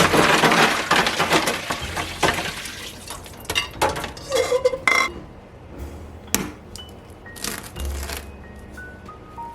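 Hard-boiled eggs knocking against a dish and their shells cracking, a dense crackle in the first two seconds and then scattered clicks, over soft background music.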